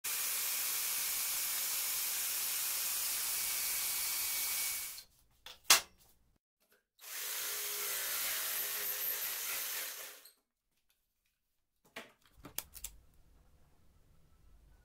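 Cordless jigsaw (BPS-18Li-Q) running with a steady buzz for about five seconds, then cutting through a wooden board for about three seconds. A loud sharp click comes between the two runs, and a few smaller clicks follow near the end.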